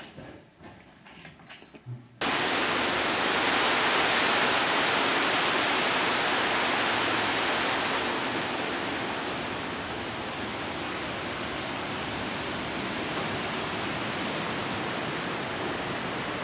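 Strong wind rushing, a steady loud noise that starts abruptly about two seconds in and eases slightly about halfway through.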